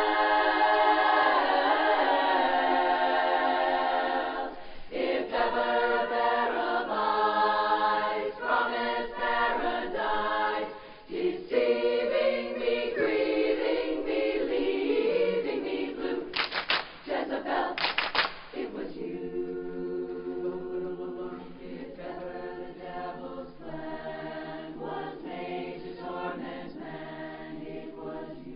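Women's chorus singing a cappella in close harmony. A little past the middle come two short, sharp noisy accents, and after them the singing is softer.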